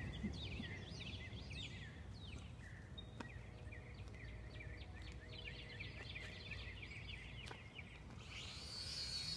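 Songbirds chirping in many quick falling notes, faint over a low rumble. Near the end a high, steady whine starts up: the small drone's motors spinning up.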